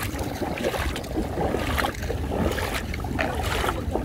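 Footsteps wading through ankle-deep seawater over a tidal mudflat, sloshing and splashing about once a second, with wind rumbling on the microphone.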